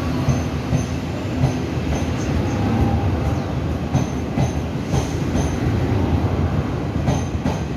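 Folding-door Chu-Kuang Express passenger coaches rolling past close by as the train pulls out of the station: a steady rumble of wheels on rail, with clicks over rail joints and several brief high wheel squeals.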